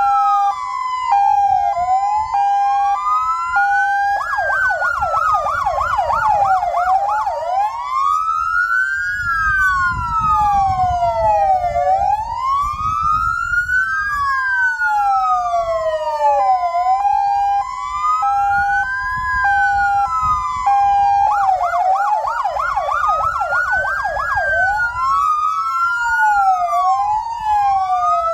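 Sirens of parked fire-service vehicles sounding together, as a salute to a fallen firefighter. A slow wail rises and falls every couple of seconds under a stepped two-tone, and twice a rapid yelp cuts in for about three seconds. A low rumble runs underneath.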